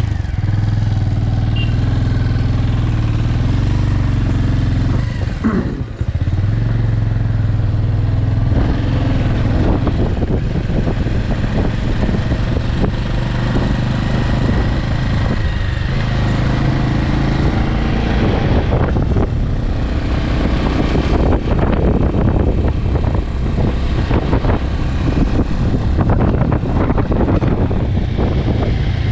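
Bajaj Avenger 160 Street motorcycle's single-cylinder engine running, steady for the first few seconds. The sound drops briefly about five seconds in, then continues louder and rougher as the bike rides on.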